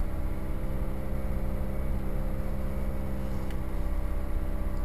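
Toyota 1ZZ-FE 1.8-litre four-cylinder engine running steadily at its fast cold warm-up idle, just under 2000 rpm, heard from inside the car. It holds its revs on its own with no throttle: the normal warm-up idle.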